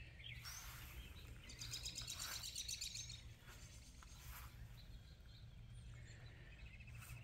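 Small birds chirping, with a quick run of repeated notes between about one and a half and three seconds in, over the steady low hum of a house air-conditioner unit running.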